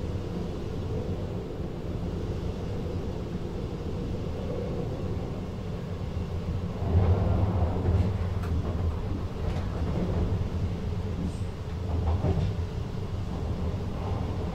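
A VIRM double-deck electric train running, heard from inside the driver's cab: a steady hum and rumble of the moving train. It grows louder about halfway through, with a few sharp clicks over it.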